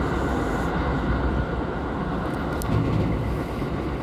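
Kintetsu Nara Line electric train running at speed, heard from inside the carriage: a steady rumble of wheels on rail, with one faint click a little past halfway.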